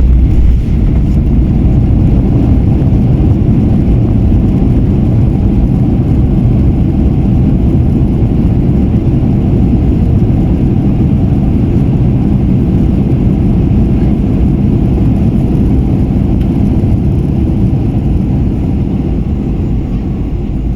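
Loud, steady low rumble of a Boeing 737-800's engines and rushing air, heard from inside the passenger cabin during the landing, easing slightly toward the end.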